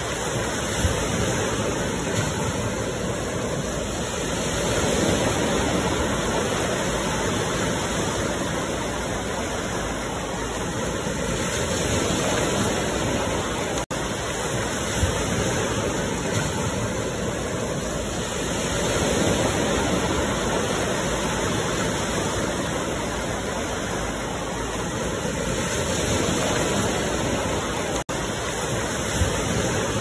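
Ocean surf washing in continuously, swelling and easing about every seven seconds, with two momentary breaks in the sound.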